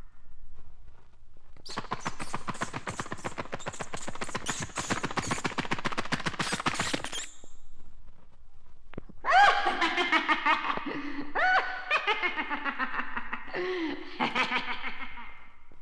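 Spooky Halloween sound effects: a fast, clattering rattle for about five seconds, then, after a short gap, a voice making cries whose pitch slides up and down.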